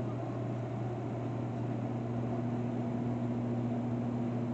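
Steady low hum with an even hiss over it: constant background machine or electrical noise, with no ticks or knocks.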